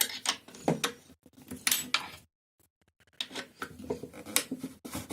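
Metal clicks, taps and scraping as a suspension pivot bolt is twisted and pulled by hand out of the rear suspension bushings of a Kugoo S3 electric scooter. The sound cuts out completely for a moment about halfway through.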